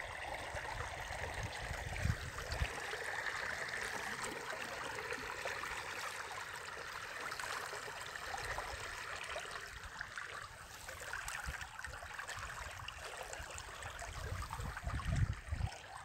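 River water washing and lapping steadily around a raft as it is pulled across on a rope, with a couple of low thumps about two seconds in.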